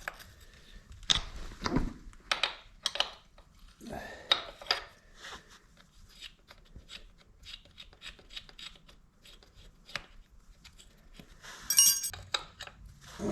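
Hand tools clicking and knocking against metal as a nut on the motorcycle's sprocket area is loosened, with irregular clicks and a short ringing metallic clink near the end.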